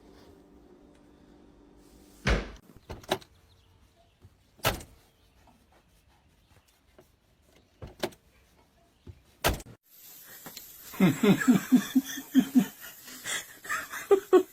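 Several separate sharp knocks or bangs over a quiet background, then from about ten seconds in a quick run of short pitched sounds.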